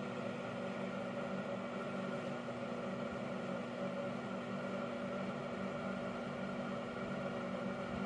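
A steady machine hum with a few held low tones, unchanging throughout.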